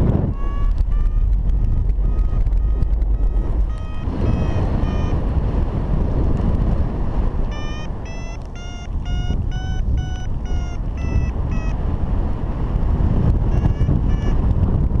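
Paragliding variometer beeping in short repeated tones, about two to three a second, in runs broken by a couple of pauses, the pitch stepping up and down: the beeping of a vario signalling the glider is climbing in lift. Steady wind noise on the microphone underneath.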